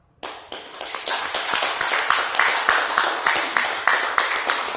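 Audience applauding, starting suddenly just after the start, with one person clapping loud and close by.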